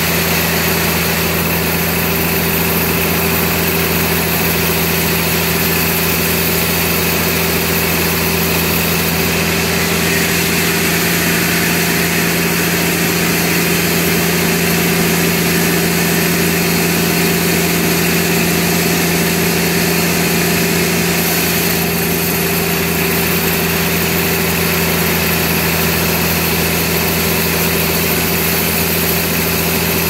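Large sawmill band saw running at a steady speed: a constant machine hum with a higher whine above it, unchanging throughout.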